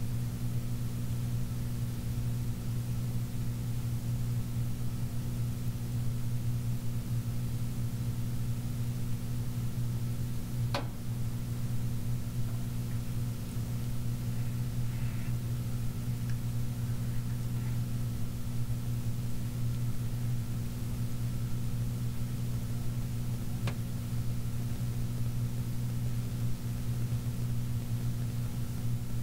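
Magic Chef 20-pound washer running in its rinse cycle: a steady motor hum, with two sharp clicks about 11 seconds in and again about 13 seconds later.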